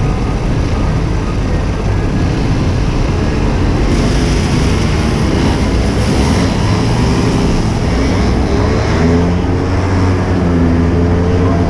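Street go-kart's small engine, first a low rumble while stopped, then revving up with its pitch climbing and wavering as the kart pulls away and drives on.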